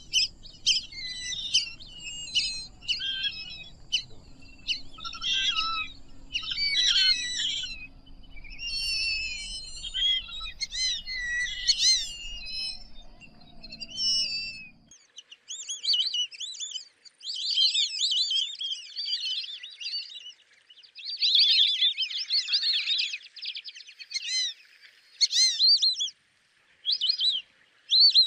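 Flock of lesser whistling ducks calling: dense runs of short, high-pitched chirping whistles, overlapping and coming in bursts. A faint low background hum stops about halfway through while the whistling goes on.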